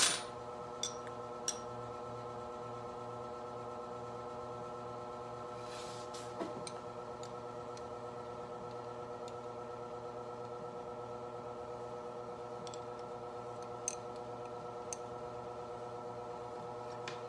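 A steady, unchanging hum with several pitches, with a few faint short clicks here and there.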